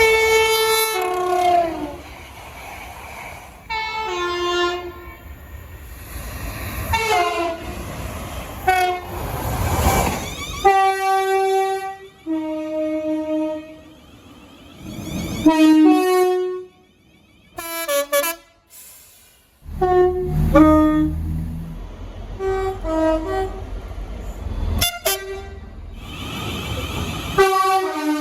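Train horns in a run of short spliced clips: repeated blasts of chords of several notes, some dropping in pitch as the train goes by, over the rumble of passing trains. Clips change abruptly from one horn to the next.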